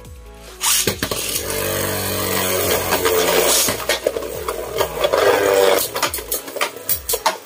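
Two Beyblade Burst tops, a Takara Tomy and an MQ-brand Savior Perseus, are launched into a plastic stadium well under a second in. They spin and grind loudly against the stadium floor, then give a run of sharp clacks near the end as they knock into each other.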